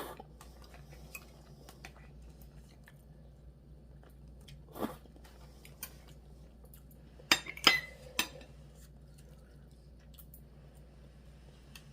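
Quiet chewing with small mouth clicks. There is a short louder sound about five seconds in, and a little past halfway a utensil knocks sharply against a dish three times, the loudest sounds here.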